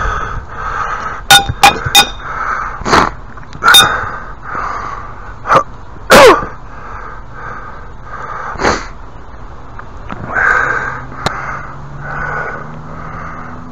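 Sharp knocks and clatters of wood and tools from hand work on a wooden step, the loudest about six seconds in, over crows cawing again and again in the background.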